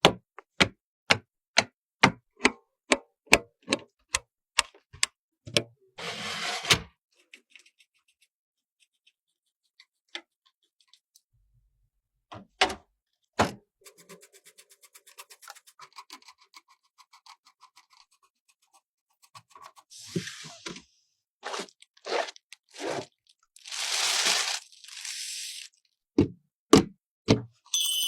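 Computer parts being handled and fitted together: a run of sharp clicks and knocks about two or three a second, short rustling scrapes, and a few seconds of fine rapid ticking in the middle.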